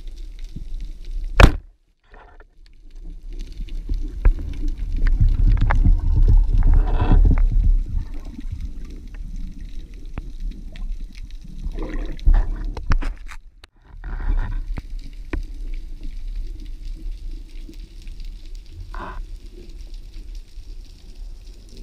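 Underwater noise through an action-camera housing: water rushing and gurgling around a free-diving spearfisher as he swims, with a low rumble that swells and fades. A single loud, sharp click comes about a second and a half in.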